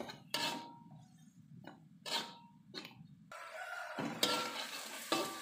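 Metal spatula scraping and stirring spice paste with sweet soy sauce in a wok, in a few separate strokes, over a light sizzle that grows louder about three seconds in.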